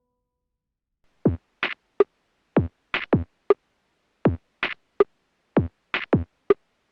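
Background music: an electronic drum-machine beat on its own, deep kick hits and sharper higher hits in a steady rhythm, starting about a second in after a short silence.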